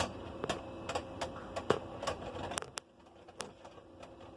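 Beyblade spinning tops whirring in a plastic stadium and clashing, with a string of sharp clacks as they hit. The whirring drops off about three seconds in.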